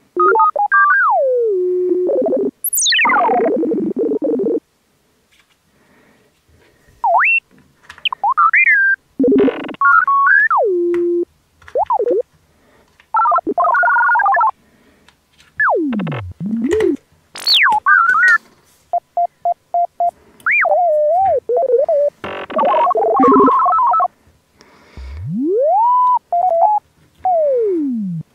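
A string of synthesized cartoon sound effects: tones that slide steeply up and down like a slide whistle, warbling blips and a quick run of short beeps, with short gaps between them. Near the end one tone rises and then falls in a long arc.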